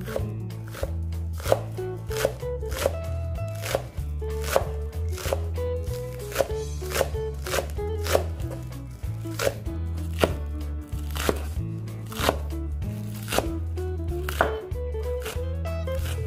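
Knife chopping green onions on a wooden cutting board: sharp, uneven knocks of the blade on the board, about one or two a second, over background music with a steady bass line.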